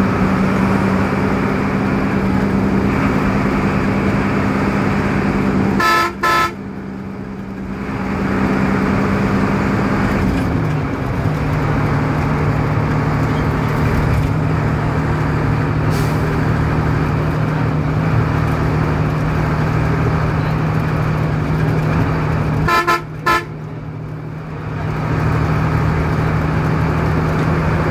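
Steady engine and road drone heard from inside a large vehicle's cabin at highway speed, its hum dropping to a lower pitch about ten seconds in. A horn gives two short toots about six seconds in and two more near the end.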